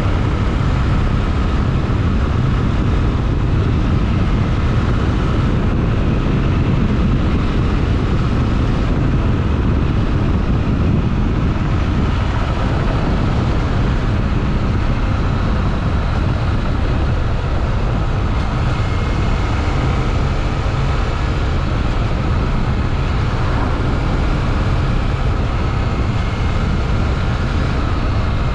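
Honda XRE 300's single-cylinder engine running steadily as the motorcycle is ridden at an even pace.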